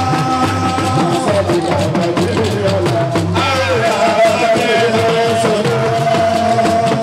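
Music: a held, wavering melody, sung or played, over steady drumming and shakers.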